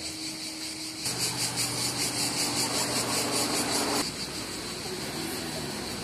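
Street ambience: a motor vehicle's engine hums, louder for about three seconds from about a second in, then drops off abruptly. Under it is a steady, pulsing high chirring of insects.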